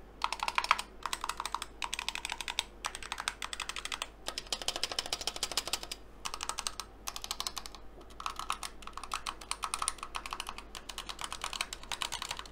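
Typing on a Razer Huntsman Tournament Edition TKL keyboard with red linear optical switches: quick runs of keystrokes broken by brief pauses.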